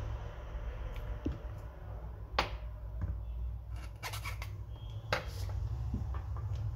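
Small tools and wire being handled over a phone circuit board during a jumper-wire repair: a few sharp clicks and snips, the clearest about two and a half and five seconds in, over a steady low hum.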